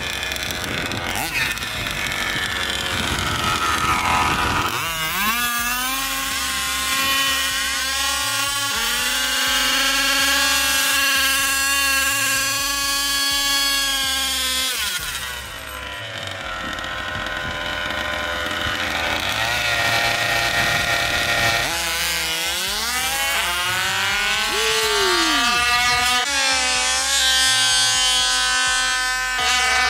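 Small two-stroke gas engines of 1/5-scale RC drag cars running: a steady idle through the first half, then revving with the pitch climbing and swooping in the second half.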